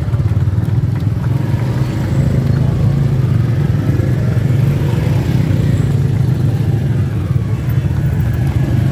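Several motorcycle engines running together, a steady low engine sound with no clear revs or breaks.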